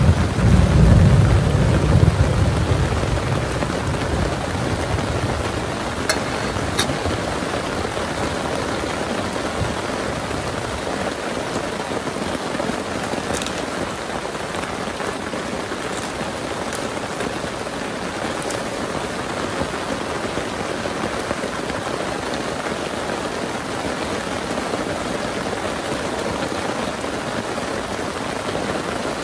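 Heavy rain falling steadily, with a low rumble of thunder dying away over the first few seconds. A few sharp drip ticks stand out here and there.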